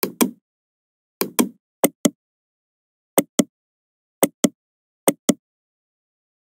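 Computer mouse clicking: six quick pairs of sharp clicks, the button pressed and released or double-clicked, spread over the few seconds with silence between.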